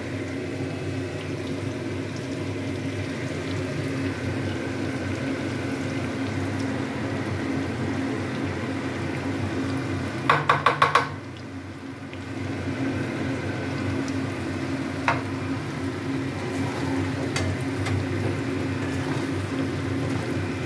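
Raw mango pieces sizzling steadily in hot mustard oil in a metal kadai as ground spices are added. About ten seconds in, a quick run of about five sharp metallic clinks.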